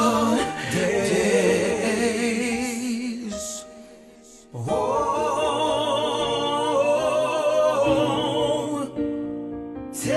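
A song with wavering, drawn-out sung notes over backing music. The music drops away briefly about four seconds in, comes back, and thins to held notes near the end.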